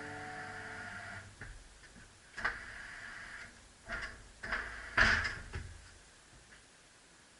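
Background music fades out in the first second, then a series of about six separate knocks and clunks, the loudest about five seconds in.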